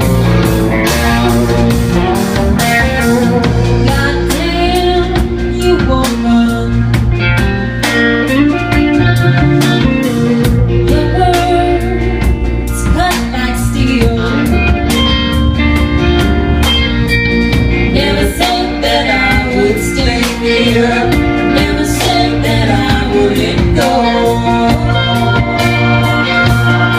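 Rock band playing a song: electric guitar and drum kit, with singing.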